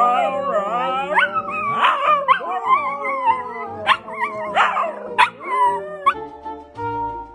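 A dog howling and whining in long, wavering cries that slide up and down in pitch, over background music. The cries stop about six seconds in and the music carries on alone.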